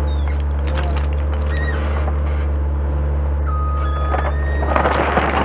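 Skid steer loader's engine running steadily at a low hum. Near the end, riprap stone clatters loudly as it slides out of the loader's bucket.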